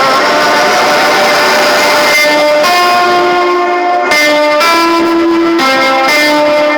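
Loud music blasting from a paredão car sound system: a melody of held, guitar-like notes that follows a dense, noisy first couple of seconds.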